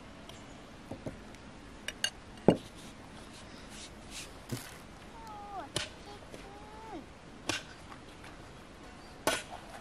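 Scattered clinks and knocks of a metal spoon and glass bowl being handled: two light clinks about two seconds in, then a sharp knock, the loudest sound, with single knocks later. Midway there is a short wavering high call.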